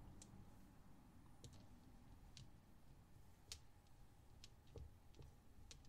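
Small plastic dice being picked up and set down against one another: a few faint, scattered clicks over quiet room tone, the sharpest about three and a half seconds in.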